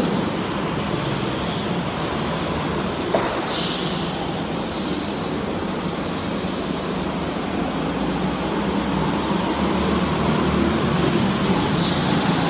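Go-kart engines running as karts lap the track: a steady engine drone, with the note swelling as a kart passes close, about three and a half seconds in and again near the end. A single short knock about three seconds in.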